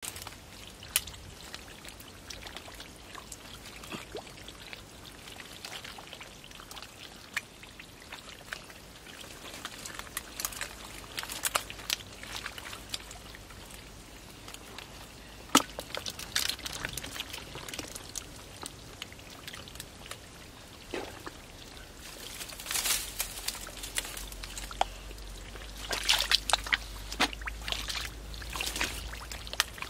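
Muddy water splashing, sloshing and trickling as hands grope through a shallow mud pool, in short irregular splashes that come thicker and louder in the second half.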